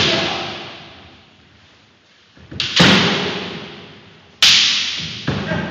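Kendo exchanges: sharp cracks of bamboo shinai striking armour and feet stamping on a wooden floor, in clusters about two and a half, four and a half and five and a half seconds in, each echoing in a large hall.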